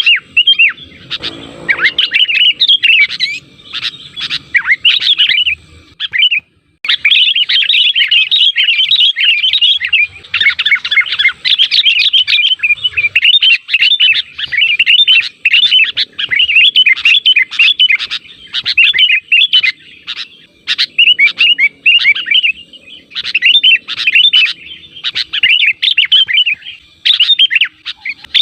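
Sooty-headed bulbul (kutilang) calling in a rapid, continuous run of bubbly chirps, with one short pause about six and a half seconds in. This is the lure call used to draw other bulbuls to answer.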